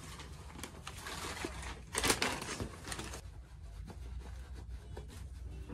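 Rustling and handling noise as a cricket wicketkeeping glove is pulled on over a keeping inner glove, with a louder rustle about two seconds in and quieter after about three seconds.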